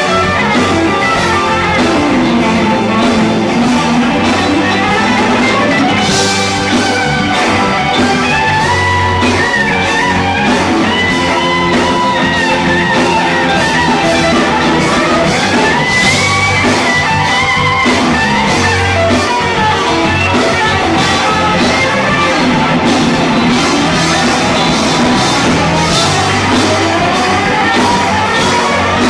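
Live rock band playing: electric guitars, bass guitar and drum kit, with a lead guitar line sliding and bending over the top.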